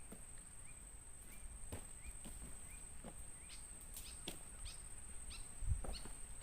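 Forest ambience: a steady high-pitched insect drone with a short rising chirp repeating roughly every half second. Scattered sharp clicks and snaps run through it, and there is a low thump near the end.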